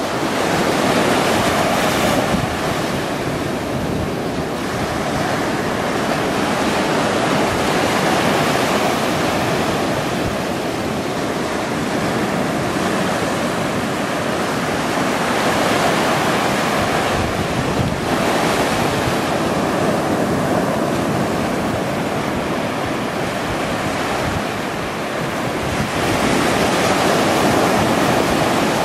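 Ocean surf breaking and washing up the beach, a steady rush that swells and eases every few seconds.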